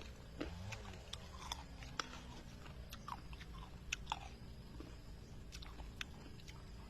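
Close-up chewing of mango, with sharp crisp crunches scattered through as bites are taken and chewed.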